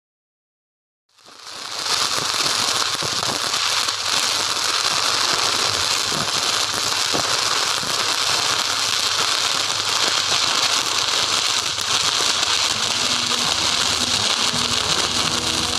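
Stick (shielded metal arc) welding: the arc's steady, even crackle, starting about a second in.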